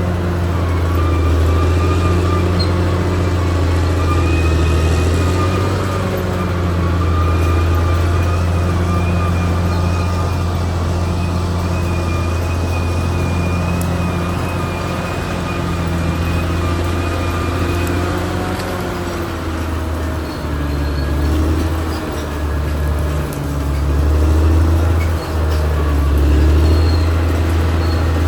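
Caterpillar D6R XL bulldozer's diesel engine running steadily under load, with a thin high whine over the low drone. The engine note dips briefly a few times in the last third.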